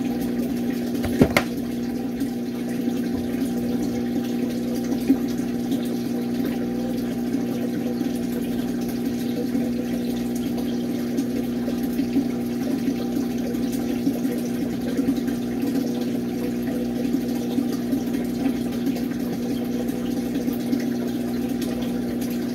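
Steady low mechanical hum made of several tones held at one pitch, like a running motor, with a single brief knock about a second in.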